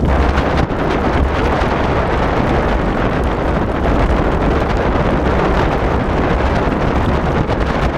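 Wind buffeting the microphone over a steady low rumble from a dog-team rig rolling along the trail at running speed.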